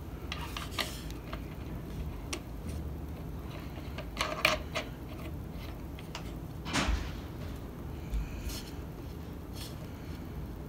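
Scattered light clicks and taps of a metal washer and threaded prop nut being fitted by hand onto an RC plane's motor shaft, with the plastic propeller being handled.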